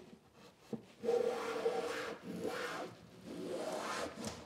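Low-angle block plane shaving the bevelled edge of a wooden inset cabinet door in three strokes, the first the longest and loudest, trimming the door to fit its opening.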